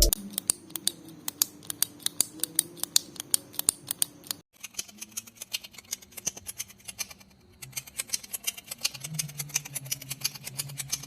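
Rapid, uneven series of sharp clicks, about five a second, pausing briefly twice, over a faint low hum.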